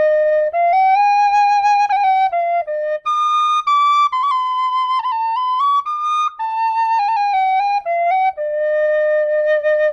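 Nickel Killarney tin whistle playing a short melody, one note at a time, stepping up and down. It starts and ends on the same low note, holding that final note for over a second.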